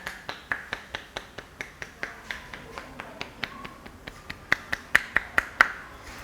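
A head massage's percussive hand strokes: a steady run of sharp snapping clicks, about three a second, that grow louder and slightly quicker near the end.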